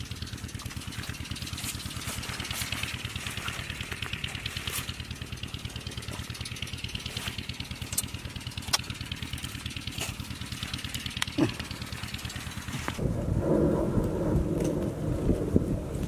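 A small engine running steadily with a fast, even beat, with scattered sharp clicks over it. About thirteen seconds in it gives way to a louder rushing noise.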